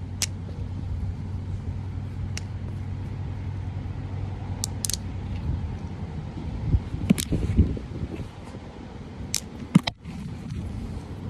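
Two magnetic balls clacking together in several sharp clicks at uneven intervals, over a steady low rumble.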